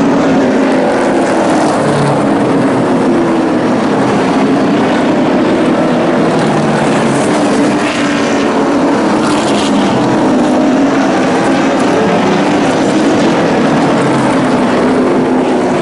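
Several short-track stock race trucks racing together around an oval, their engines running hard with pitches rising and falling as they move around the track.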